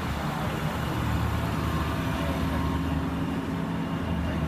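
A motor vehicle engine running steadily with a low, even hum.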